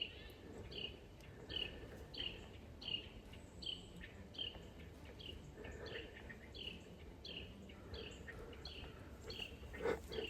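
A bird singing one short, high, downward-slurred note over and over, about one and a half times a second, against a faint steady outdoor background. A single sharp knock comes near the end.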